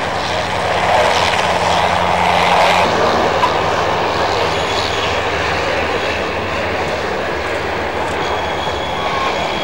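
Radial engines of a Junkers Ju 52 trimotor droning steadily as it flies low, the engine note shifting slightly about three seconds in.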